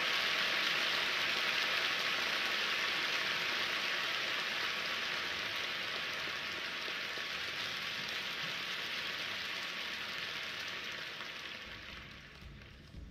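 Large arena crowd applauding: dense, steady clapping that slowly fades and dies away near the end.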